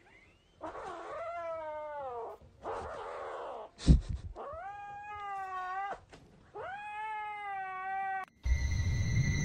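Kitten giving three long, drawn-out yowling meows, the first falling in pitch, with a breathy hiss-like stretch and a single thump between the first and second.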